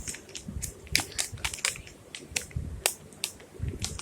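Plastic packaging crinkling and crackling in irregular sharp snaps and clicks as wired earphones are pushed back into it.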